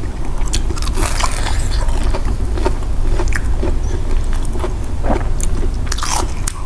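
Close-miked eating: two people biting into and chewing fried, crumb-coated sweet potato and cassava balls, with scattered short crackles and mouth clicks over a steady low hum.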